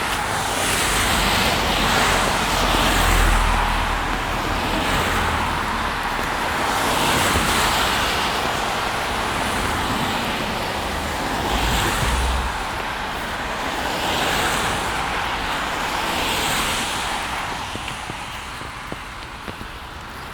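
Cars passing one after another on a rain-wet road, their tyre hiss swelling and fading several times, with a low engine rumble under the first few seconds.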